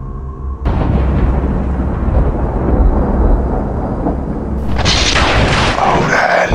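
A loud boom-like rumble starts suddenly just under a second in and runs on, with a hissing rush joining about five seconds in.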